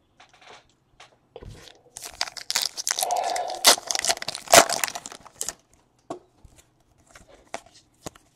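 Trading card pack wrapper torn open and crinkled, a dense crackling rip with sharp snaps lasting about three seconds, followed by a few light clicks and rustles.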